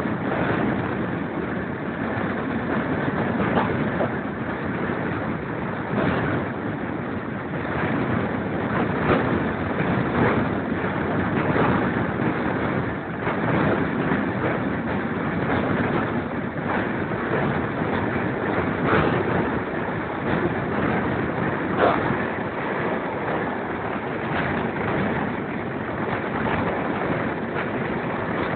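Steady rush of a passenger train running at speed, heard from an open carriage window, with wind on the microphone and a few irregular knocks from the running gear.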